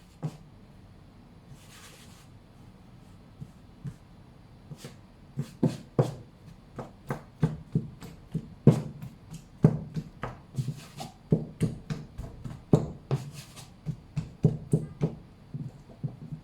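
Irregular light knocks and taps, about two or three a second, from hands working and handling bread dough, after a brief rustle near the start.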